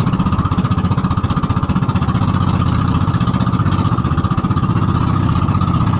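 Small open passenger boat's engine running steadily under way, a rapid, even chugging with no change in speed, with water rushing and splashing along the hull.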